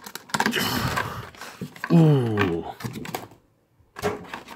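Clear plastic blister packaging from a Pokémon trading card box crinkling and clicking as it is handled, with a few sharp clicks near the end.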